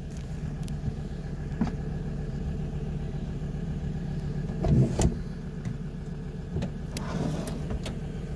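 Van engine idling, a steady low hum, while it drives the DC-DC charger. There are a few knocks, the loudest about five seconds in.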